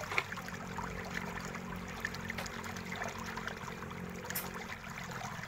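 Faint clicking and scraping of plastic pry tools working along the seam of a Huawei MateBook D15's bottom cover, popping its retaining clips loose: one sharper click just after the start, then scattered small ticks. A steady low hum runs underneath.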